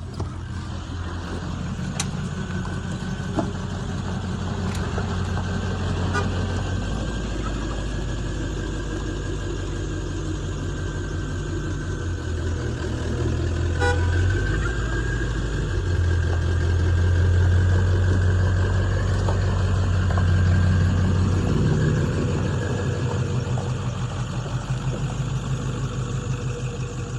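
7.3-litre diesel engine with a KC stage 1 turbocharger running, a deep steady drone with a faint high turbo whistle above it. It gets louder past the middle and eases off near the end.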